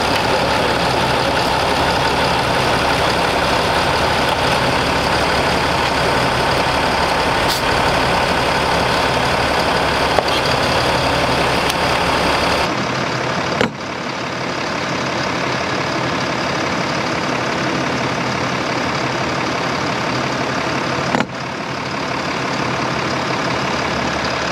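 Diesel pickup engine idling steadily, with a few sharp clicks.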